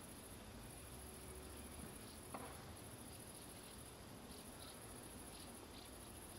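Faint high-pitched trilling of night insects, steady stretches broken by short pauses, with a single faint click about two and a half seconds in.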